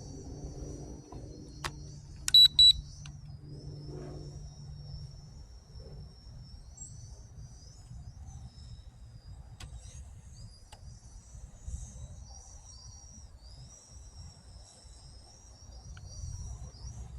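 Crickets trilling steadily, cut across about two seconds in by two quick, loud, high electronic beeps. A low steady hum runs underneath for the first five seconds, then stops.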